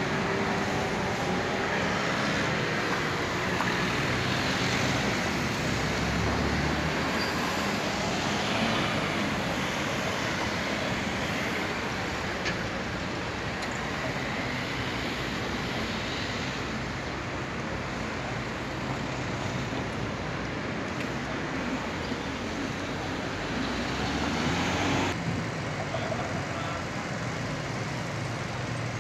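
City street traffic noise: cars and buses running and passing in a steady mix, with a low engine hum underneath. The sound changes abruptly about twenty-five seconds in.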